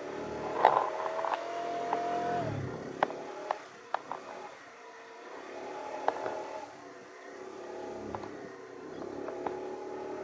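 Small scooter engine running as the scooter moves off. The engine note climbs over the first couple of seconds, then settles lower, with a few sharp clicks and rattles at intervals.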